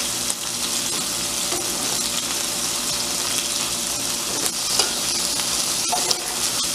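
Ground-beef patties sizzling steadily in hot oil in a frying pan. A few light taps and scrapes of a metal spatula against the pan come between about four and six seconds in, as the patties are turned.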